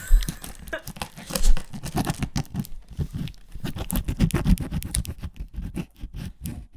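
Cardboard box being torn open and handled: an irregular run of tearing, scratching and crinkling noises.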